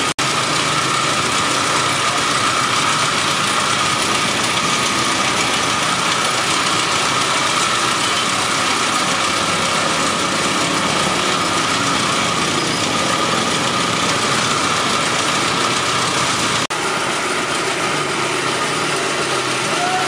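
Belt-driven wire-working machine running steadily: an electric motor turning pulleys and a spinning shaft that the cage wire is fed through, giving a constant hum and whir. The sound cuts out for an instant twice, once right at the start and once about 17 seconds in.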